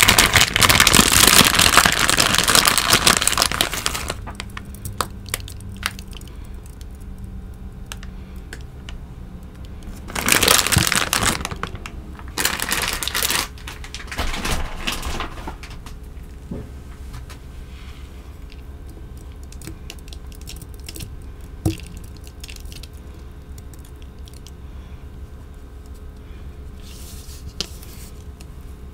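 Plastic pouch of Kinetic Sand crinkling and rustling as the sand is tipped out, loudest for the first few seconds. Three shorter bursts of the same rustling come about ten to fifteen seconds in, and after that only faint scattered ticks as the sand is handled.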